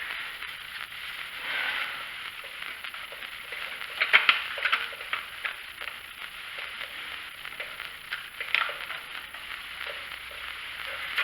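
Light clicks and rattles of small plastic and metal parts being handled, as the choke linkage is worked and the plastic air box is fitted over the carburetor, with sharper clicks about four and eight and a half seconds in.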